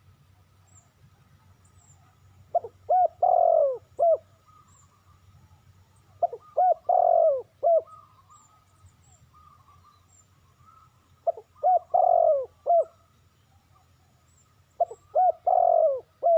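Spotted dove cooing: four phrases about four seconds apart, each two short coos, a longer drawn-out coo and a short closing note. Faint small-bird chirps sound in between.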